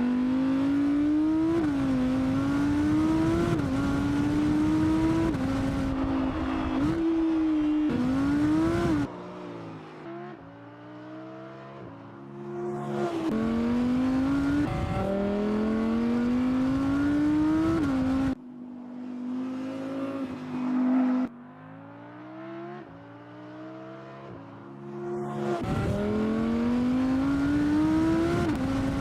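Audi R8 GT's 5.2-litre V10 accelerating hard through the gears: the engine note climbs and drops back sharply at each upshift. Twice it eases off to a quieter, lower note before pulling hard again.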